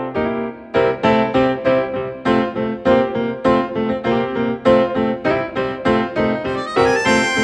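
Background music: a quick, bouncy piano or electric-piano melody with evenly paced notes, growing brighter near the end.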